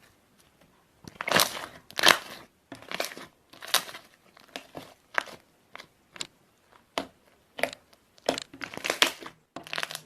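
Slime being squeezed and pressed by hand, about a dozen short crackly, popping squelches roughly a second apart as air bubbles in it burst.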